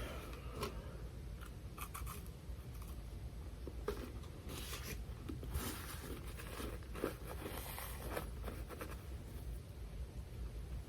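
Close-up chewing of a crispy wafer bar: irregular crisp crunches and crackles as the wafer is bitten and chewed.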